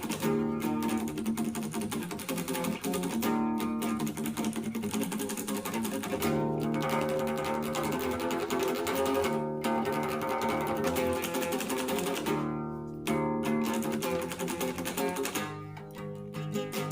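Instrumental music with plucked strings holding chords, broken by a few short pauses.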